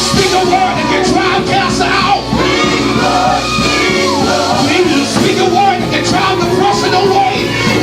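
Live gospel music from a church band, with voices singing and calling out over it.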